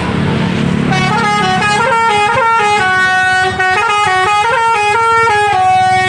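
Telolet 'Basuri' multi-note air horn on a Mercedes-Benz OC500RF coach, starting about a second in and playing a stepping melody of short pitched notes that continues to the end. The coach's engine is heard under it at the start.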